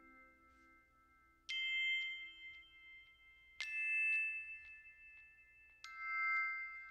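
Background music: three struck, bell-like mallet notes about two seconds apart, each ringing on for a while.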